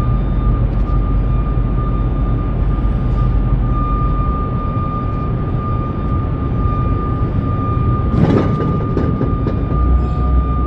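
Steady low machinery rumble with a continuous high-pitched tone, during a truck being loaded with steel coils. A brief hiss breaks in about eight seconds in.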